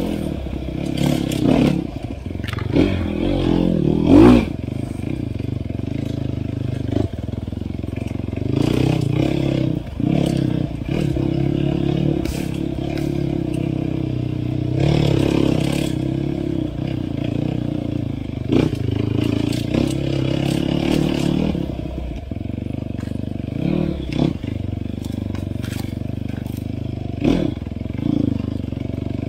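Off-road dirt bike engine running under load, its revs rising and falling repeatedly with the throttle, with scattered knocks and clatter throughout and a loud knock about four seconds in.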